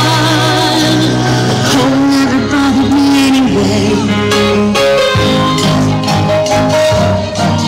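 Music: a singing voice with vibrato over instruments, with a steady beat coming in through the second half.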